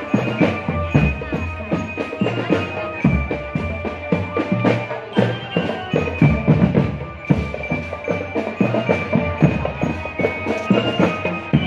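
Marching drum band playing: dense, fast drum strokes with bass drum hits under a melody of held notes that step up and down.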